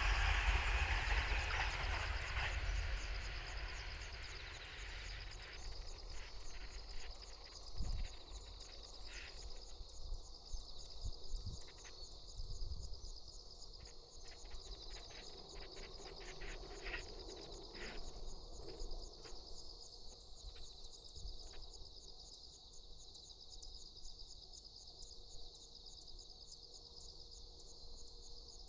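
A passing train fading away over the first few seconds, leaving a steady, even-pulsing chorus of insects with scattered faint clicks.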